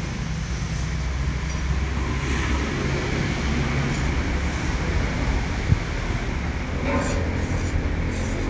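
A steady low rumble, with a cleaver striking a wooden chopping block once, sharply, a little over halfway through, and a few lighter knocks near the end.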